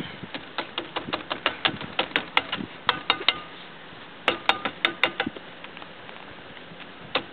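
Snow and ice being scraped off a car in quick crunchy strokes, about five a second, in two runs with a short pause between. A longer quiet stretch follows before the strokes start again near the end.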